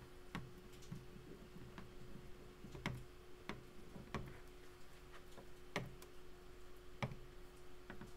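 Stylus tip tapping and clicking on a tablet screen during handwriting: irregular faint clicks, roughly one a second, over a steady faint electrical hum.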